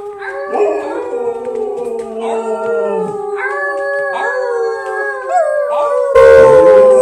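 Siberian husky howling together with people howling along, several long wavering tones overlapping and gliding. About six seconds in it gets louder and rougher.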